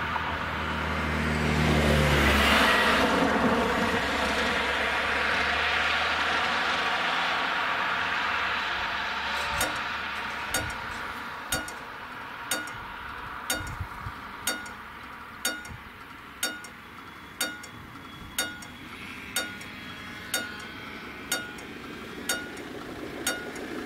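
A car drives past on the road, loudest about two to three seconds in. About nine and a half seconds in, the level crossing's warning bell starts ringing, one strike about every second, signalling that the crossing has closed for an approaching train.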